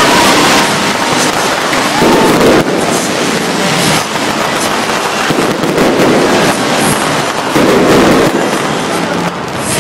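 Fireworks display going off in a dense, continuous barrage of crackles and bangs, with onlookers' voices under it.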